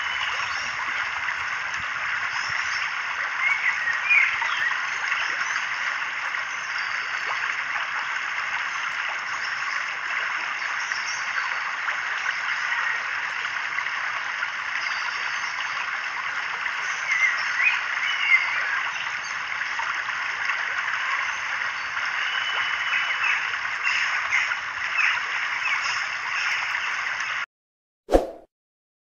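Steady outdoor wetland ambience: a dense, even chorus with small scattered chirps over it, which cuts off abruptly near the end and gives way to a brief chime.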